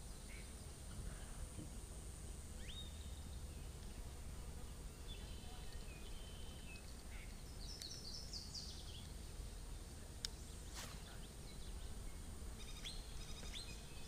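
Small birds chirping in short runs of quick notes several times over a low, steady outdoor background noise, with two sharp clicks about ten seconds in.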